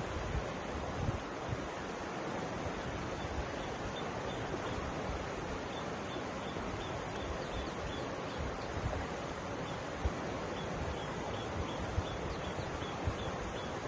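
Mountain river flowing steadily, an even rushing of water with low rumbles of wind on the microphone. A faint high chirp repeats about twice a second through most of it.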